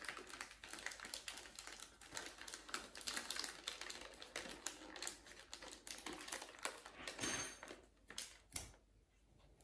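Gift wrapping at close range: wrapping paper rustling and crinkling, with many quick, light clicks. The sound thins out and goes quiet near the end.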